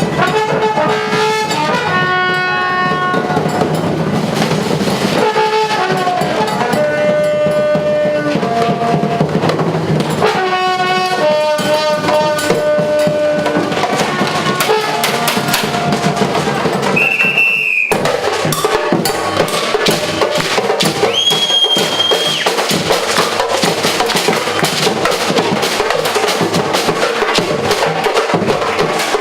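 Percussion band playing a fast, dense drum groove. Through the first half a melody of held notes runs over the drums; it stops about two-thirds in after a short high tone, leaving the drums alone.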